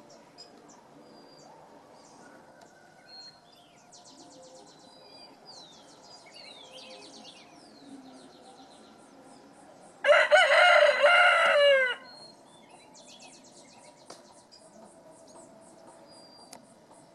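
A rooster crows once, loud, for about two seconds about ten seconds in, the call falling in pitch at its end. Small birds chirp and trill faintly throughout.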